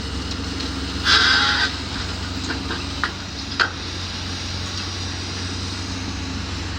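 Demolition machinery's engine running steadily, with a short loud clatter of debris about a second in and two sharp knocks a couple of seconds later.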